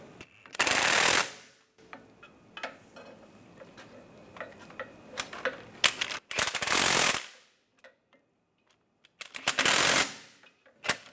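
Socket ratchet clicking in three bursts of about a second each, with a few loose clicks between them, as the catalytic converter's flange nuts are tightened down on their studs.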